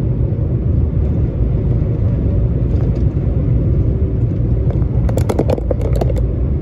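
A DAF semi-truck cruising on the highway, heard inside the cab as a steady low rumble of engine and road. About five seconds in there is a brief run of sharp clicks.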